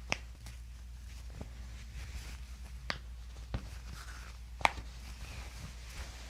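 Quiet room with a steady low hum and a few brief, sharp clicks and taps. The loudest comes about three-quarters of the way through.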